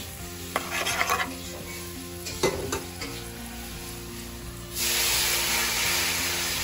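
A spatula scrapes and clicks against a kadai, stirring spice paste frying in oil. Just under five seconds in, a loud, steady sizzling hiss sets in as the curry gravy cooks in the hot pan, then slowly fades.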